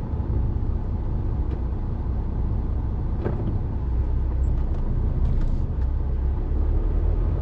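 Articulated lorry's diesel engine running with a steady low rumble as the truck pulls slowly forward, heard from inside the cab.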